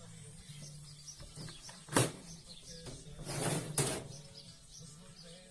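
Handling of manual sprayer pump parts: a sharp click about two seconds in, then a brief scraping rustle and a second sharp click. Birds chirp faintly in the background.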